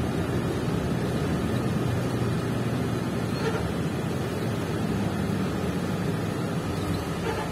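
Steady rumble inside a moving city bus: engine drone and road noise while the bus drives along.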